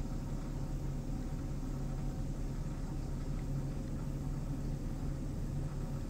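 Car engine idling, a steady low hum heard from inside the cabin.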